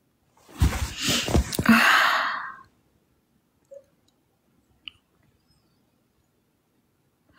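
Rustling and knocking of a phone being handled and shifted against the microphone, lasting about two seconds. A faint click follows a few seconds later.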